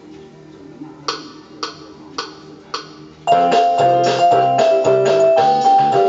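Casio LK-175 electronic keyboard: four evenly spaced count-in clicks, then a loud melody on the keys starts about three seconds in over a drum and bass accompaniment.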